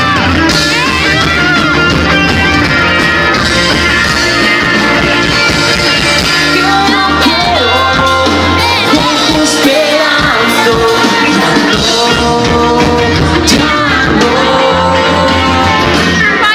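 Live pop-rock band playing loudly with a lead vocalist singing, recorded from the audience.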